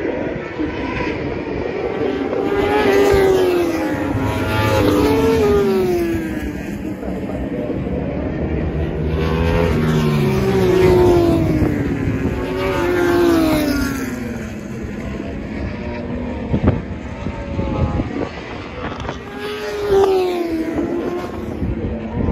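Superbike racing motorcycles passing in groups at full race pace, their high-revving engine notes falling in pitch again and again, in about three waves.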